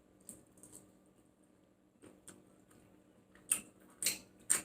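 Eating sounds close to the microphone: scattered faint clicks and mouth smacks while chewing, with three sharper clicks in the last second and a half.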